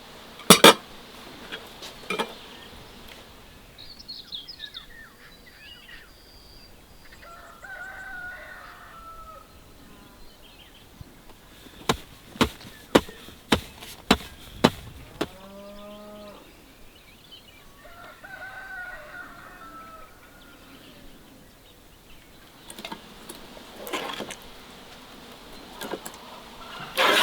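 A rooster crowing twice, each crow about two seconds long. Sharp knocks come at the start, in a quick cluster between the crows, and again near the end.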